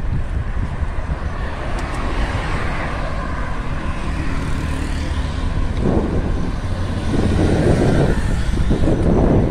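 Road traffic on a wide city road heard from a moving bicycle: cars driving past, with a heavy low rumble from wind on the microphone. The noise swells louder over the last couple of seconds.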